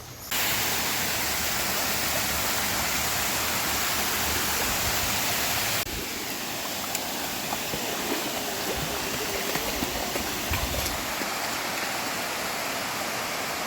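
Rushing water from a waterfall or stream, a steady loud rush that steps down in level about six seconds in.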